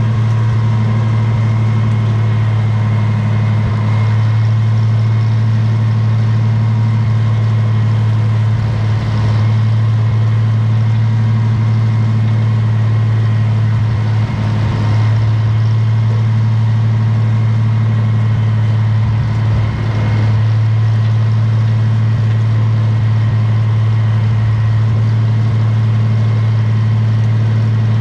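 Farmall 706 tractor engine running at a steady, constant speed: an even, deep drone with no revving, dipping slightly for a moment twice past the middle.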